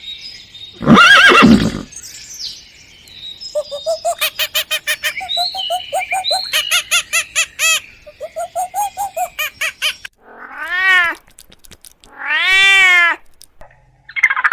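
A run of different animal calls in turn: a loud call about a second in, then a fast string of short repeated pitched calls for several seconds, then two drawn-out cries that rise and fall in pitch near the end.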